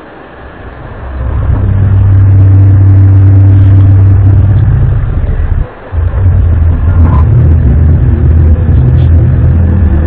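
Loud, low, steady droning hum of the kind circulated as a 'strange sky sound' or 'sky trumpet'. It swells in about a second in, cuts out for a moment just before the middle, then comes back.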